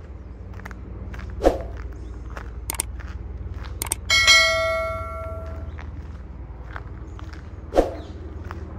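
A single bell ding, ringing and fading over about a second and a half, from a subscribe-button animation sound effect. It sits over steady footsteps on a gravel path, with a sharp pop about a second and a half in and another near the end.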